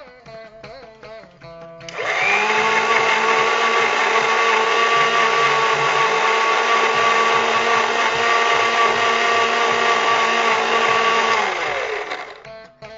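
Electric mixer grinder running for about ten seconds, grinding chopped ivy gourd leaves into a paste. Its whine rises quickly as the motor spins up about two seconds in, holds steady and loud, then sinks as the motor winds down near the end.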